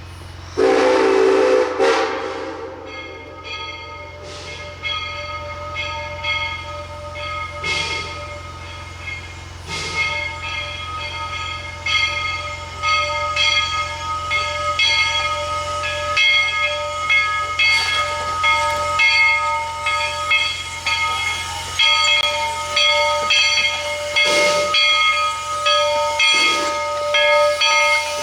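Narrow-gauge steam train: a loud blast about half a second in, likely the locomotive's steam whistle, lasting about two seconds. Then the train runs on with a squeal of high steady tones that keeps breaking off and returning, likely steel wheels on the rails, over hissing steam that grows louder near the end.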